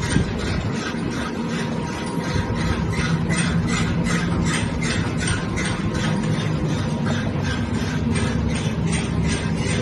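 Noodle-making machinery running: a steady low hum with an even, rhythmic clatter of about three strokes a second, typical of a dough rolling and sheeting line in operation.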